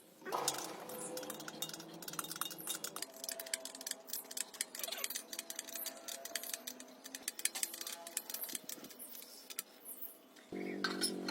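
Many quick, light metallic clicks and clinks, like small metal parts and tools being handled. Near the end a steady pitched hum starts suddenly.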